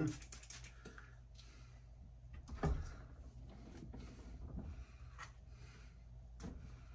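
Handling noise while wet sanding pads and a bowling ball are set up: a light knock about two and a half seconds in, smaller clicks later, and faint rubbing between.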